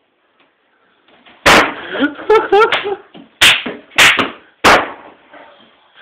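Four heavy blows against a refrigerator's sheet-metal door: one about a second and a half in, then three close together about a second apart. A voice shouts between the first and second blow.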